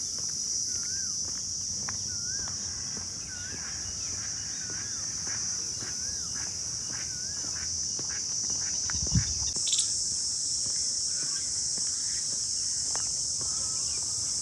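Insects keep up a steady high-pitched drone, while a bird repeats a short warbling call over and over until about halfway through. A low thump comes about nine seconds in, followed by a click, and the insect drone then grows slightly louder.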